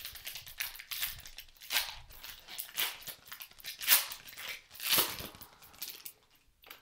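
Wrapper of a Panini Prizm basketball card pack being torn open and crinkled by hand: a run of sharp rustling bursts, roughly one a second, the loudest about four seconds in.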